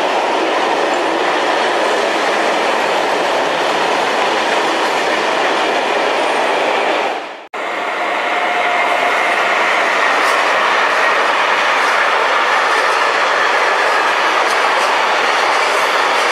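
Freight train wagons rolling past at speed: a steady, loud rush of wheels on rail with some clickety-clack. About seven and a half seconds in, it cuts out for an instant and picks up again as a second freight train of container wagons passes.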